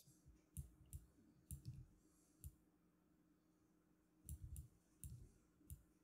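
Faint computer mouse clicks, about nine scattered irregularly, some in quick pairs, over a faint steady low hum.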